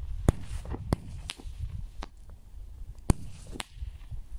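Fireworks going off: about six sharp cracks at irregular intervals over a steady low rumble.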